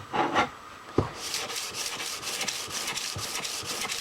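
Sandpaper (280 grit) on a sanding board rubbing back and forth over a switch plate in quick, even strokes, about four or five a second, starting just after a sharp knock about a second in.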